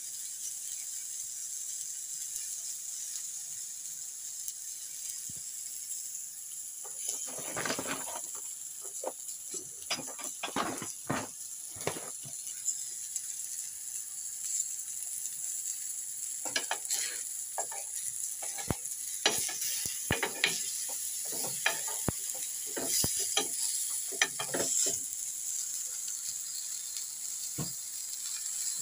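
Fish fingers sizzling in a flat non-stick frying pan, a steady hiss, with scattered clicks and rustles through the middle.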